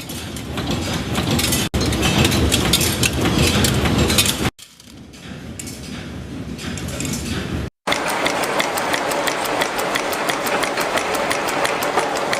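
Production machinery running in several short cuts, one after another. Each cut brings a different machine noise, and the last one has a fast, even clicking rhythm.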